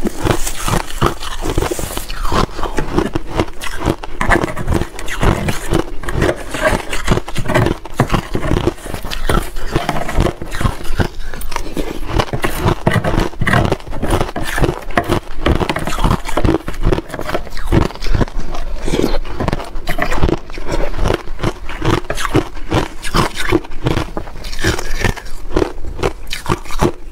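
Close-miked chewing and crunching of powdery, slushy shaved ice: a dense, irregular run of crisp crunches, with a spoon scraping the ice in a plastic tub.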